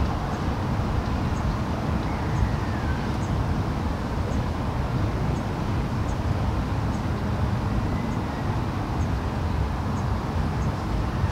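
Steady outdoor background rumble, heaviest in the low end and buffeting unevenly, with faint high ticks every second or so.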